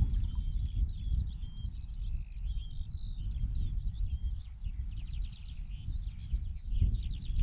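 Small birds chirping and twittering in many short calls and whistles, over a steady low rumble.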